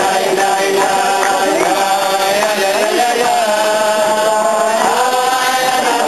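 A group of men singing a melody together in chorus, with long held notes.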